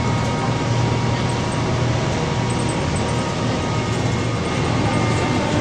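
Cabin noise of a VMZ-5298.01 trolleybus riding along: a steady low rumble with a thin, steady whine above it.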